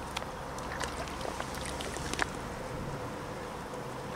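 Stream water running steadily, with a few small splashes and drips as a trout is released from wet hands into the shallows.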